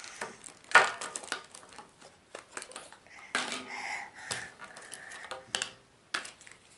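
Cardboard jigsaw puzzle pieces clicking and clattering as they are pulled apart and handled on a table, in irregular bursts with the loudest knock about a second in.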